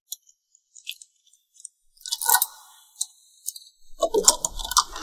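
Keys jingling and clicking against a metal door lock, with a louder rattle about two seconds in, then the lever handle and latch clattering, loudest near the end, as the door is worked open.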